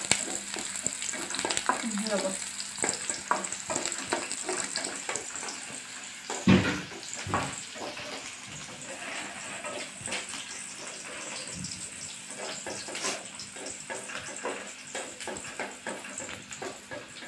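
Chopped onions sizzling in hot oil in an aluminium kadai, stirred with a wooden spatula that scrapes and taps against the pan. One louder knock of the spatula on the pan comes about six seconds in.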